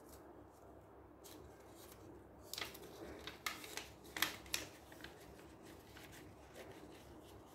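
Folded paper hand puppet being worked open and shut by hand, the paper rustling and flapping in a cluster of short crisp snaps from about two and a half seconds in to nearly five seconds.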